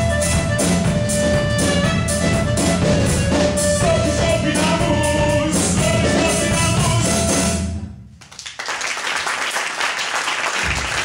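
Live acoustic band of clarinet, guitar, double bass and drums playing the closing bars of a song, which stops sharply about eight seconds in. Audience applause follows to the end.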